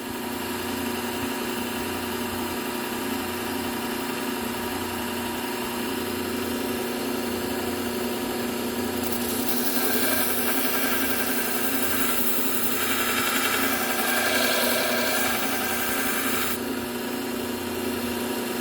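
Bucktool low-speed belt sander running with a steady hum. From about nine seconds in, a scissor blade is run along the moving belt for several seconds in two passes, adding a grinding hiss as the edge is sharpened.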